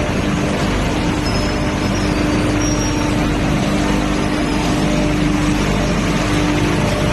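Industrial machinery running steadily: a constant hum under a dense, loud mechanical rush that does not change.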